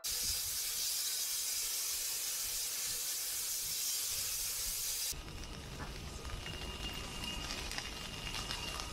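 Steam locomotive letting off steam in a loud, steady hiss. The hiss cuts off abruptly about five seconds in, giving way to a quieter low rumble with a few light knocks.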